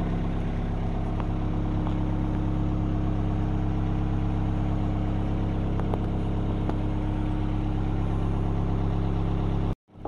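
Diesel engine of an Avant 650i compact loader running steadily at idle, with a few faint clicks. The sound drops out briefly near the end.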